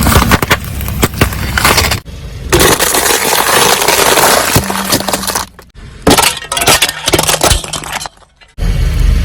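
Brittle objects cracking and breaking as they are crushed, in several short clips cut together, with a low steady hum under some of them.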